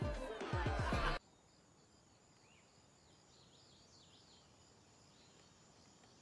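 Music with a heavy, thumping beat that cuts off abruptly about a second in. After it comes faint outdoor ambience with a few soft bird chirps.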